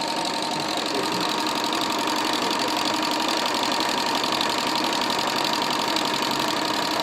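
Singer sewing machine running steadily at speed with a serge cutter attachment on its needle bar, stitching and trimming the fabric edge, with a steady motor whine over the fast needle rattle.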